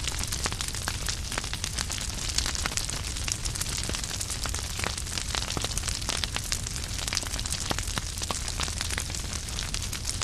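Wood logs burning in a fireplace: a steady low rumble and hiss of the flames with many sharp, irregular crackles and pops.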